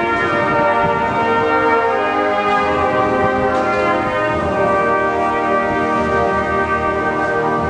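Slow ceremonial music on brass instruments, with long held notes and chords that change a few times.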